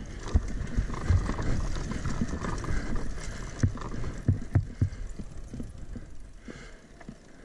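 Dirt bike coasting down a bumpy grass slope: irregular thuds and knocks from the suspension and wheels over the rough ground, with no steady engine sound.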